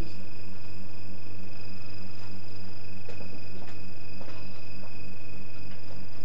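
A steady electrical hum with a thin high whine, the recording's own background noise, broken by a few faint clicks in the middle. No sound from the fox is heard.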